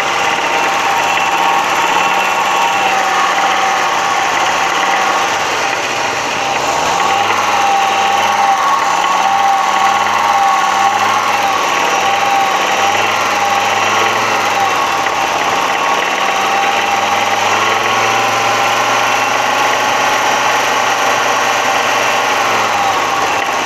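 Audi 100 2.3 NF inline five-cylinder engine running and being revved up. Its pitch rises about seven seconds in, dips, then is held higher again before falling back near the end. The owner says this engine knocks from around 3000 rpm and up, more clearly under load.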